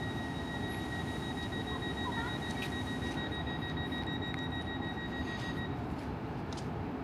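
Westbahn Stadler KISS double-deck electric train standing at the platform, its equipment giving a steady hum. Over it a rapid, high-pitched beeping sounds and stops about six seconds in.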